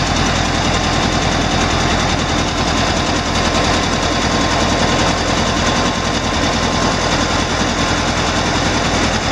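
1963 Volkswagen Type 2 Campmobile's air-cooled flat-four engine idling steadily, purring with a fast, even pulse, heard close up through the open engine lid. The automatic choke has kicked down, so it is running at its lower warm idle.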